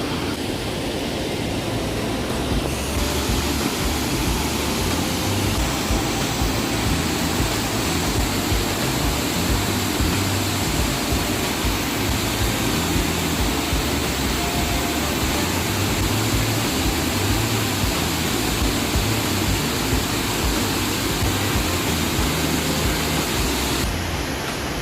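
Steady rush of a river waterfall, an even wash of noise; its tone changes abruptly about three seconds in and again near the end.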